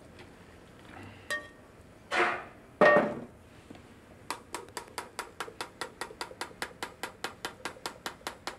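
Sauce being strained through a fine metal strainer. A metal pan clinks and knocks against the strainer as the sauce is poured in. Then a ladle clicks rapidly and evenly inside the strainer, about five metal taps a second, as the sauce is pushed through.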